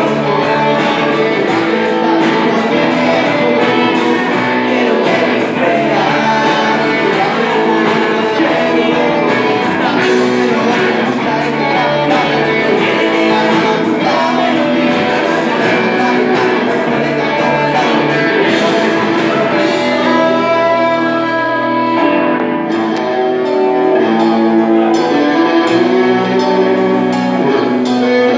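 Live rock band playing: electric guitars, saxophone and drums on a steady beat, with a male singer, heard from the audience in a club.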